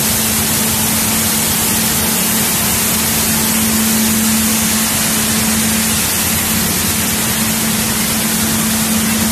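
Grain cleaning machinery running: an air screen cleaner and gravity separator with vibration motors, giving a loud, steady hiss with a constant low hum underneath.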